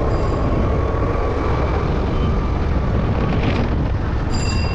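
Steady road and traffic noise from riding a scooter, with wind rumbling on the microphone.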